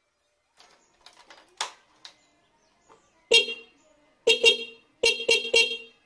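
Electric disc horn (Rilline) wired to a Yamaha FZS motorcycle, sounding in short beeps: one, then two, then three in quick succession, the newly connected horn being tested. A few light handling clicks come before the beeps.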